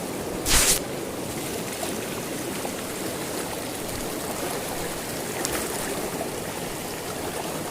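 River water flowing steadily, a continuous rushing noise, with one short, louder burst of noise about half a second in.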